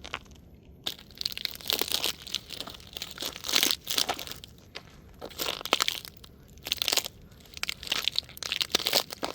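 A toy car being crushed under a sneaker: repeated crunching and cracking in bursts after a quiet first second.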